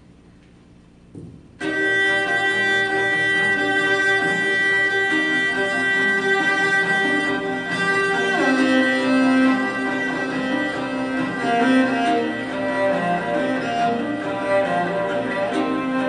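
Layered cello music, long bowed notes entering suddenly about a second and a half in after a quiet moment with a soft knock. The held chord shifts lower about eight seconds in.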